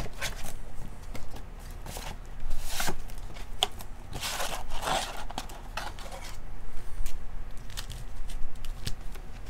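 A cardboard trading-card box being opened and its wrapped card packs handled: scattered scrapes, rustles and crinkles, with a few sharper clicks.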